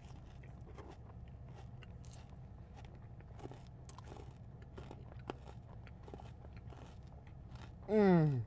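Chewing and biting into a dessert cup of crunchy kataifi strands and Oreo crumbs, with many small, faint crunches and clicks. It ends in a short hummed 'mmm' that falls in pitch.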